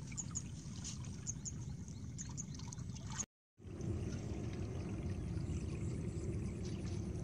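Water trickling and splashing in a shallow ditch over a steady low rumble; the sound cuts out completely for a moment about three seconds in, then the low rumble goes on.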